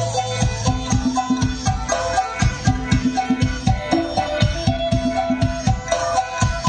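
Northeastern Thai (Isan) folk dance music: a steady drum beat under a held, repeating melody.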